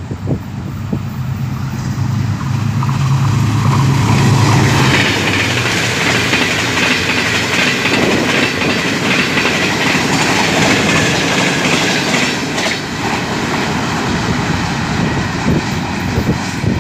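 Pakistan Railways diesel-hauled passenger express passing close by. The locomotive's engine drones steadily for the first five seconds, then the coaches' wheels run loudly over the track, easing off after about twelve seconds.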